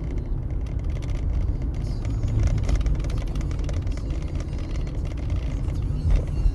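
Car driving at steady speed, heard from inside the cabin: a continuous low engine and tyre rumble, with a brief thump about six seconds in.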